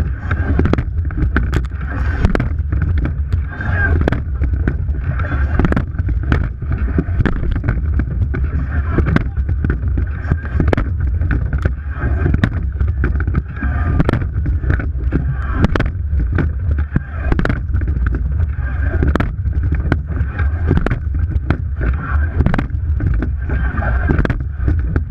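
A racing eight under way at race pace: water rushing past the bow under a low rumble, with regular sharp knocks from the oars and rigging as the crew rows.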